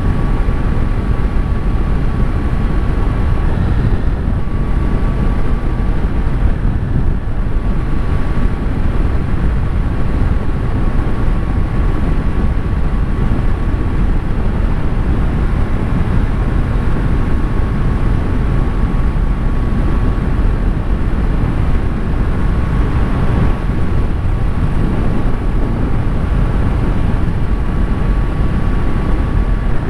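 Triumph Street Triple 765 RS motorcycle cruising at a steady speed, its three-cylinder engine running under a loud, steady low rush of wind buffeting the onboard microphone, with a faint steady whine.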